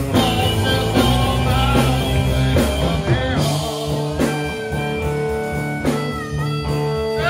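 Blues band playing live: electric guitar and electric bass with a harmonica over them, held notes bending in pitch about three seconds in and again near the end.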